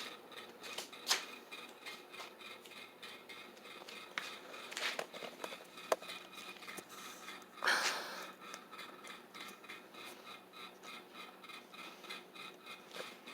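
Harbor Breeze Vector Elite 42-inch ceiling fan running on high: a faint, steady motor hum with a few thin steady tones. A few short clicks and knocks are scattered through it.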